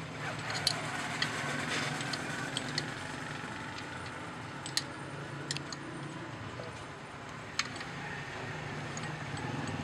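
Scattered sharp metal clicks and taps as hand tools work on the pump assembly of a hydraulic floor jack, about six in all, the sharpest about five seconds in and near the end. A steady low hum runs underneath.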